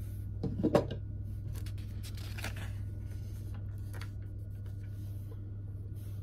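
LEGO plastic bricks being handled and snapped together: a few sharp plastic clicks about half a second in, then a short rustle of pieces being picked through, over a steady low hum.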